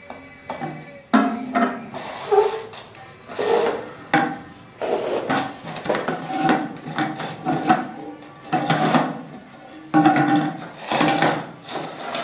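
Empty powdered-formula cans struck by a toddler's bare hands on their plastic lids, giving an uneven run of hollow thumps and taps, some in quick clusters.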